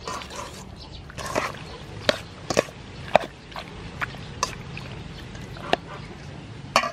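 Whole baby octopus being mixed into a thick chili-sauce marinade in a stainless steel bowl, by hand and with a metal spoon: wet squelching, with irregular sharp clicks of the spoon on the bowl.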